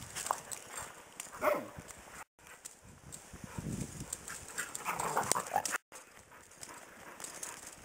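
Karelian Bear Dogs play-fighting, giving short yelps and calls. One call falls in pitch about one and a half seconds in, and a louder flurry comes about two-thirds of the way through. The sound cuts out briefly twice.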